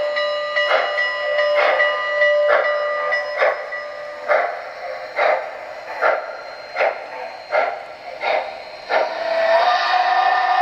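Model steam locomotive's onboard sound system: steady chuffing, a little more than one chuff a second, as the train rolls along the track. A steam whistle blows for the first four seconds or so and sounds again about nine seconds in.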